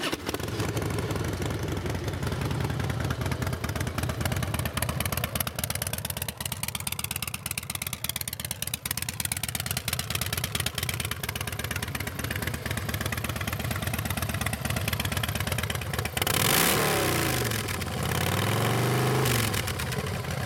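2006 Harley-Davidson Softail Night Train's 88-cubic-inch fuel-injected Twin Cam V-twin idling steadily through aftermarket drag-style pipes. Near the end it is revved twice, the pitch rising and falling each time.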